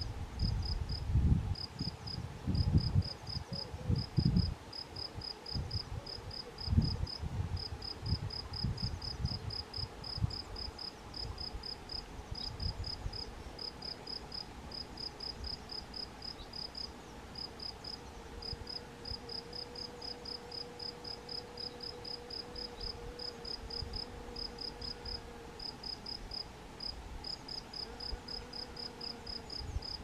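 A cricket chirping steadily: short high chirps about four a second, in runs with brief gaps. Low rumbles of wind or handling on the microphone come and go in the first ten seconds.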